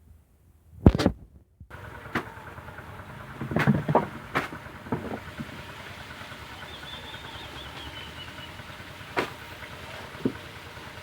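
Motor of a sago-processing machine starting and then running steadily, after a sharp loud knock about a second in, with a few more knocks and clatters over the running.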